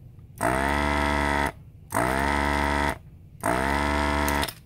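Hakko desoldering gun's vacuum pump running in three short bursts of about a second each, sucking molten solder off capacitor leads. Each burst begins with a quick rising whine as the pump spins up, then holds a steady hum.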